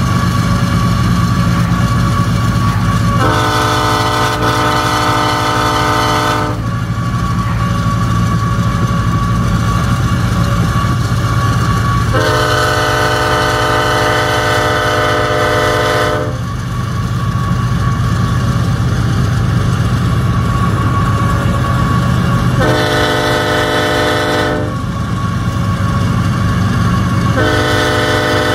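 Nathan K5HLB five-chime air horn on CP 8706 blowing the grade-crossing signal as the train approaches: two long blasts, a short one, then a final long blast still sounding at the end. A steady low rumble runs underneath.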